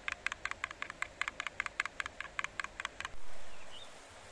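Metal spoon clicking against the side of a bowl as thick curd is stirred briskly, about six quick clicks a second, stopping about three seconds in. A short louder swell of noise follows and fades within a second.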